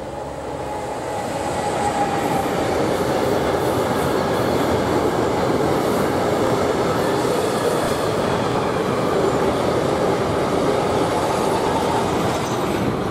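Electric locomotive hauling a long train of tank wagons past at speed, with the steady noise of the wagons' wheels running on the rails. The sound swells over the first couple of seconds and starts to fade near the end as the last wagons go by.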